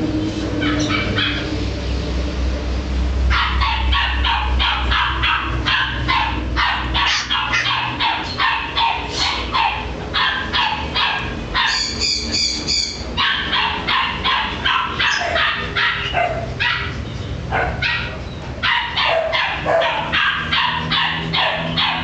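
Corgi puppy yapping in quick, high-pitched yips, about three a second, with a short high whine about halfway through.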